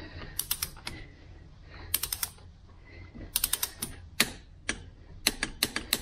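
Click-type torque wrench ratcheting in several short runs of quick clicks as it is swung back and forth, tightening a threaded block heater adapter into the cylinder head of a Kubota V3307 diesel engine to 45 ft-lb.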